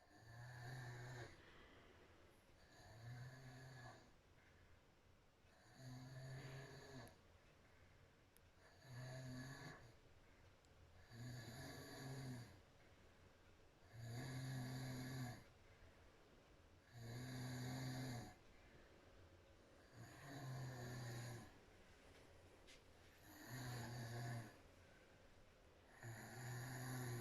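A woman snoring through a wide-open mouth in deep sleep: a low, buzzing snore about every three seconds, each lasting about a second, with quiet breathing in between.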